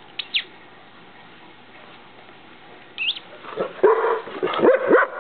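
Dutch Shepherd whining: two short high squeals, another near the three-second mark, then from about three and a half seconds a run of loud, quick barks and yowls that rise and fall in pitch. It is the restless, demanding vocalising of a bored dog that has had no exercise.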